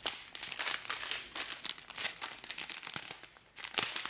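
Small clear plastic zip bags of diamond-painting resin drills crinkling as they are handled and shuffled in the hands. There are many irregular crinkles, with a short pause a little after three seconds in.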